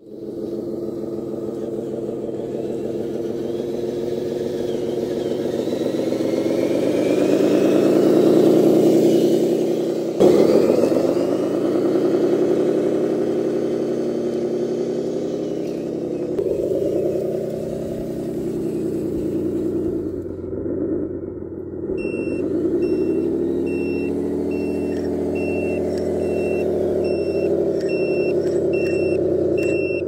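Scale RC dump truck's onboard sound module playing a simulated diesel engine, revving up and down as the truck drives. For the last third, a reverse beeper sounds about once a second over the engine.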